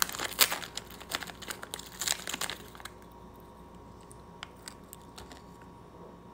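Small clear plastic packet crinkling and crackling as it is opened and a dried tarantula is taken out of it, busy for about the first three seconds, then only a few scattered crackles.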